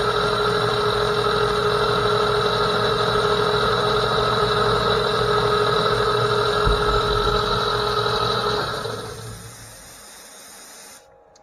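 Vintage metal lathe running steadily with a gear whine, then switched off about eight and a half seconds in and spinning down to a stop.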